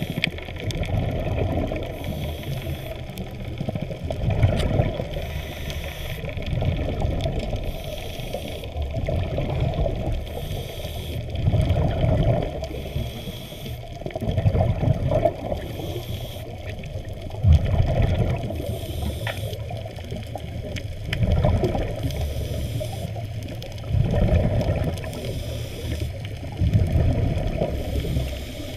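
Muffled underwater water noise from a camera moving through the water over a reef, a low rumble that swells and eases every two to three seconds.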